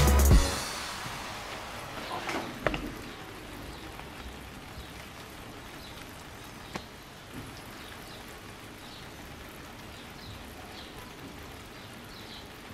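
Background music cuts off about half a second in. After that there is a faint, steady hiss with a few soft clicks.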